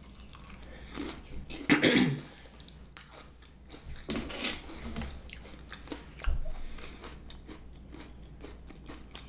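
Close-miked biting and chewing of crunchy fried onion rings dipped in cheese sauce: loud bites about two seconds in and again about four seconds in, then steady chewing with small crunches.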